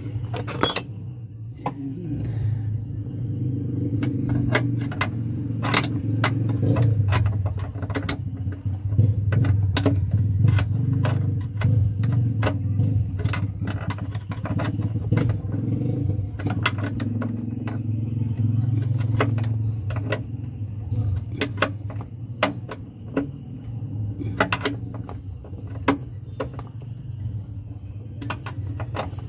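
Metal hand tools clicking and clinking irregularly against bolts and fittings while the clutch master cylinder is worked on, over a steady low hum.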